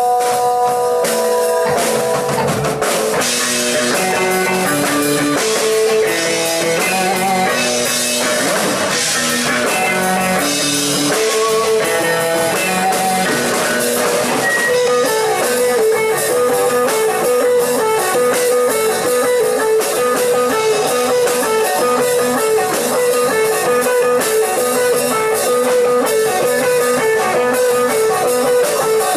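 A live rock band playing without singing: electric guitar, electric bass and a Ludwig drum kit. From about halfway through, a short figure of notes repeats over and over.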